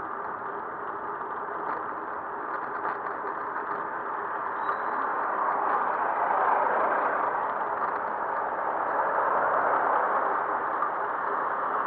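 Road and traffic noise heard while riding a bicycle through city streets: a steady rush that swells louder about halfway through, with a few faint ticks near the start.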